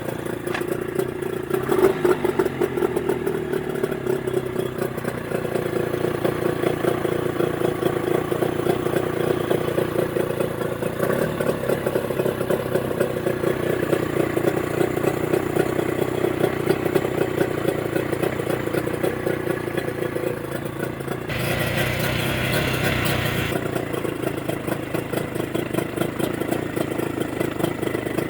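Mercury 25 hp two-stroke outboard running steadily with even firing, fitted with new Boyesen power reeds, which cured its rough running. Partway through, a hiss joins for about two seconds and then stops.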